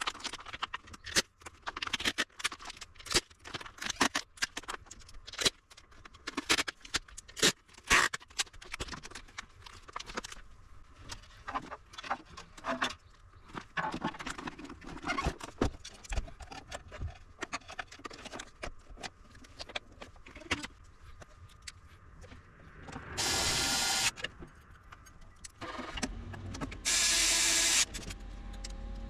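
Small hard parts and hand tools clicking and clattering on a workbench, dense at first and then sparser. Near the end come two short bursts of a whirring noise, each about a second long.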